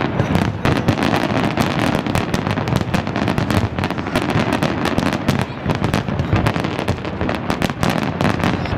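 Fireworks display with many shells bursting and crackling at once. The cracks come thick and fast, overlapping over a constant low rumble, without a pause.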